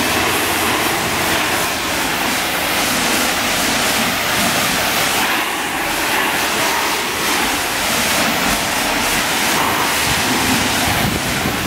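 Self-serve car wash high-pressure spray wand blasting water onto a soaped car body: a steady, hissing rush of spray.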